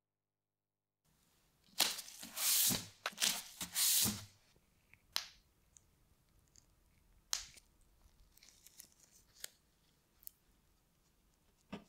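Tearing sounds in several quick pulls for about two seconds, then scattered single small clicks and taps as a tube of two-component epoxy adhesive is handled and squeezed out.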